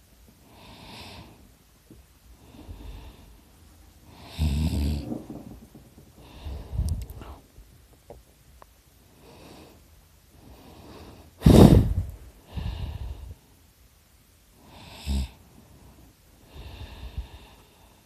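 A sleeping person snoring loudly, one rough, rattling breath every second or two. The loudest is a short, sharp snort about eleven and a half seconds in.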